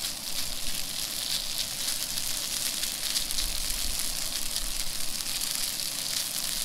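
Trout and shredded potatoes sizzling in a hot camp frying pan: a steady crackling hiss.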